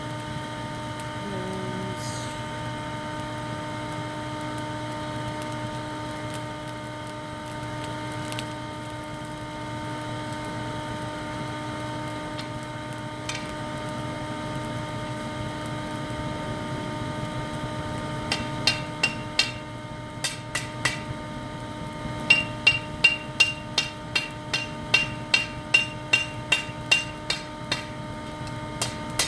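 A steady shop-vac drone blowing air into a charcoal forge. About two-thirds of the way in, a hand hammer begins striking a red-hot steel bar on an anvil, in short runs and then a steady run of about two blows a second, each blow ringing brightly.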